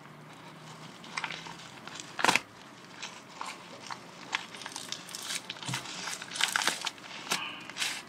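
Plastic packaging wrap crinkling and crackling as it is cut and peeled off a wrapped knife. There are scattered clicks, one sharper snap about two seconds in, and denser crackling in the second half.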